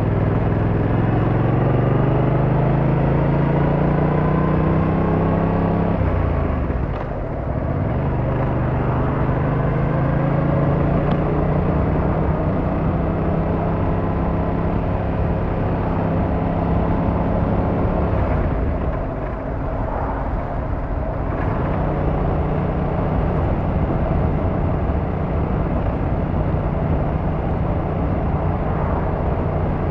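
Yamaha MT-07's 689cc parallel-twin engine and exhaust under way, the pitch climbing steadily as it accelerates. About six seconds in the pitch drops sharply and picks up again lower, as on an upshift. Around nineteen to twenty-one seconds the engine note falls away and then comes back and runs steady.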